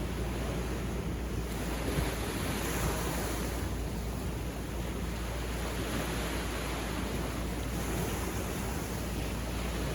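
Sea waves breaking and washing up a beach in slow surges, with a steady low wind rumble on the microphone.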